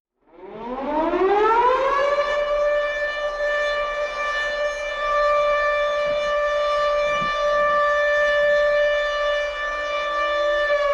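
Siren-like tone rising in pitch over about two seconds, then holding one steady pitch.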